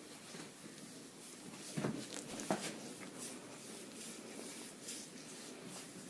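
Hands kneading and rubbing bare skin in a shoulder and back massage, a soft, steady swishing. Two short louder knocks come about two seconds in.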